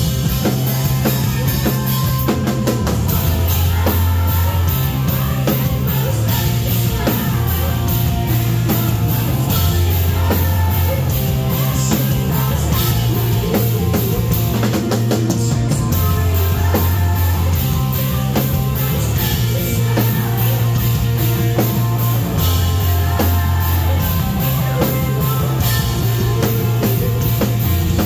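Live rock band playing loud: a drum kit with crashing cymbals, electric guitar and a low bass line changing note every second or two, under a woman's sung lead vocal.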